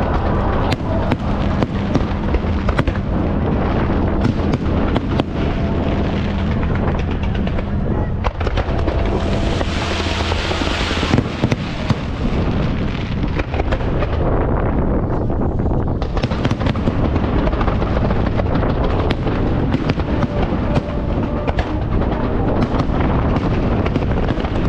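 Aerial fireworks display: a dense, continuous barrage of bursts and crackling shells, with a brighter hissing stretch lasting about two seconds near the middle.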